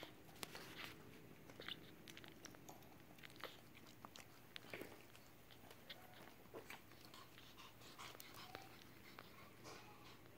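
Pomeranian puppies and their mother moving about on towels and a plastic sheet: faint, scattered small clicks and crinkles, irregular throughout.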